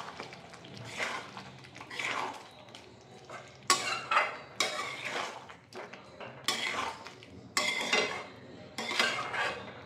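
Metal spatula scraping and knocking against a metal kadai while stirring a thick egg curry, in irregular strokes with a few sharper clanks.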